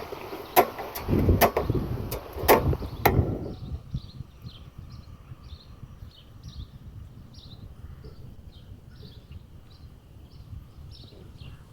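Several sharp knocks or snaps with some rustling over the first three seconds or so, then a faint high chirp repeating about twice a second.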